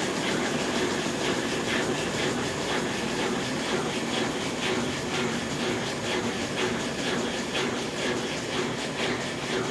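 Consul Facilite 10 kg washing machine (CWC10) in its wash stage, agitating its load in water: a steady churning with faint, regular swishes.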